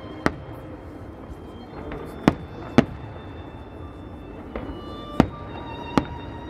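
Aerial firework shells bursting: five sharp bangs at uneven intervals over a few seconds, with faint music underneath.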